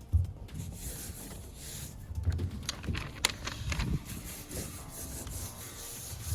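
Rubbing and scuffing with a few light knocks and ticks: hands working a strip of rubber grip pad and its backing on a car's metal roof.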